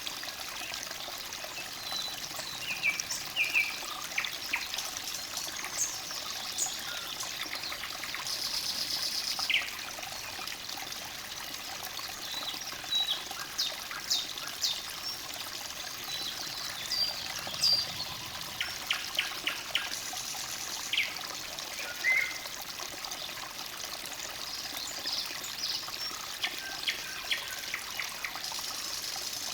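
Forest stream trickling and babbling steadily, with songbirds calling over it in short chirps and whistled notes scattered throughout.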